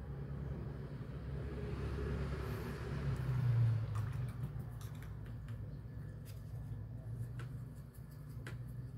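Low rumble of a vehicle passing outside, swelling to its loudest about three and a half seconds in, then easing off. A few faint light ticks follow in the second half.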